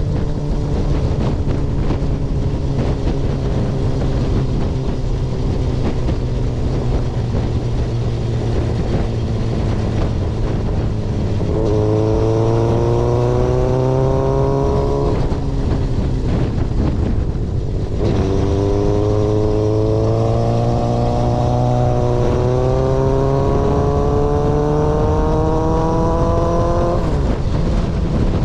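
Yamaha XJR400's inline-four engine through a straight-pipe exhaust, heard on the move. It runs steadily at first, then about halfway through climbs in pitch under acceleration, drops away briefly, and climbs again through a gear change before easing off near the end.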